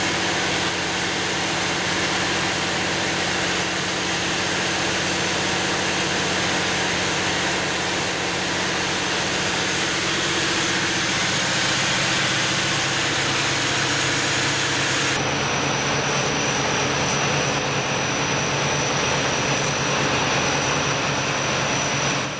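800 kW Generac industrial diesel generator set running steadily under load bank test: a continuous engine drone under a heavy rush of cooling air. About fifteen seconds in, the sound changes, with the hiss thinning and a steady high whine coming in.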